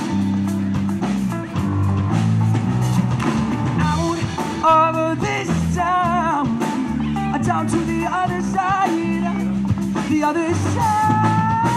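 Live pop-rock band playing a song between sung lines: guitar, bass and drums, with a wavering melody line that comes and goes over the top.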